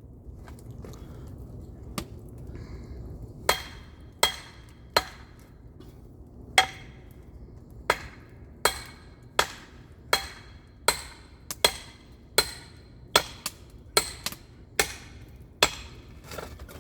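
Hatchet chopping firewood: a series of sharp blows, scattered at first, then settling about halfway through into a steady rhythm of roughly one strike every three-quarters of a second. Each blow has a short metallic ring.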